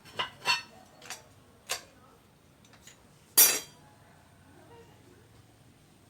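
Metal tools and parts knocking and clinking against each other, four short knocks in the first two seconds, then one louder ringing clank about three and a half seconds in.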